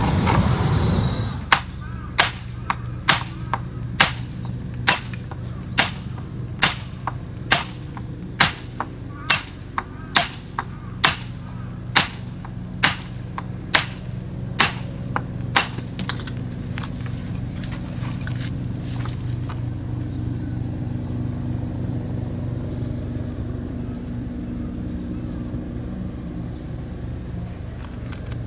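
Hand hammer blows on stone, about one sharp ringing strike a second for some fifteen seconds, as a building stone is dressed to shape. The blows stop about two-thirds of the way through, leaving a steady low engine hum. The first second or so holds a burst of louder rushing noise.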